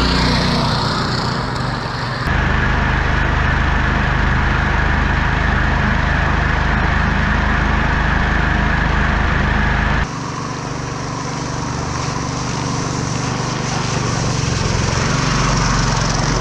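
Small petrol engine of a long-tail propeller drive running steadily at high throttle as the board planes across the water, with spray rushing behind. The tone shifts abruptly twice, about two seconds in and about ten seconds in.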